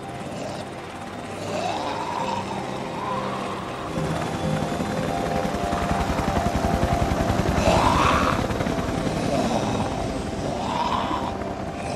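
Helicopter rotor chopping as the helicopter lifts off and flies away, growing louder to a peak about two-thirds through and then fading, under a sustained music score with slow rising and falling melodic lines.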